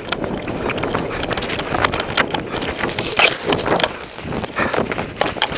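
Rustling and knocking noise with wind buffeting on the microphone, an irregular jumble of sharp knocks over a steady rush. It is the loudest around the middle.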